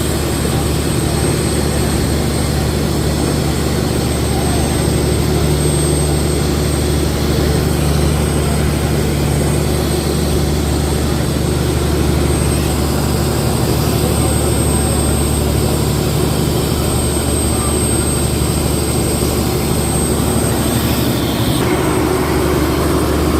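Fishing boat's engine running steadily at a constant speed, a low, even drone with hiss over it.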